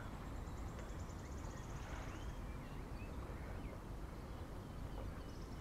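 Outdoor ambience: a steady low rumble with faint bird chirps, and a high, rapid trill lasting about two seconds near the start.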